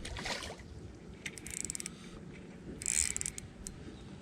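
Fishing reel clicking in short bursts of rapid ticks, about one and a half and three seconds in, as a hooked fish is played on the line.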